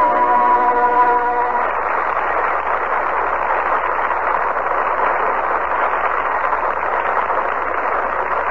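A musical number ends on a held chord about a second and a half in. A studio audience then applauds steadily for about seven seconds.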